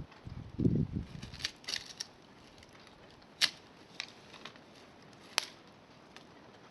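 Burning wood in a bonfire popping and snapping now and then, with a few sharp pops, two of them loud, after some dull low knocks in the first second.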